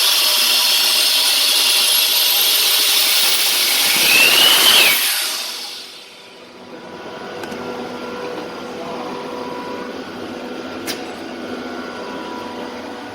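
Backhoe loader turbocharger spun at high speed on a bench test for oil leaking past its seals: a loud rushing hiss with a high whistle rising in pitch, cut off about five seconds in and quickly dying away. A quieter steady hum follows.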